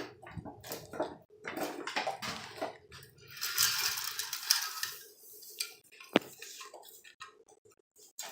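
Cardboard and plastic blister packaging of a toy car being handled and pried open: scattered clicks and crinkling, a longer rustling tear about three and a half seconds in, and a sharp snap about six seconds in.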